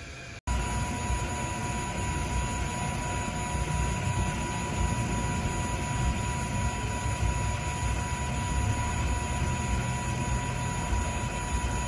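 AtomStack A5 Pro diode laser engraver running a test engraving: the laser module's cooling fan makes a steady whoosh, with a steady high whine over it.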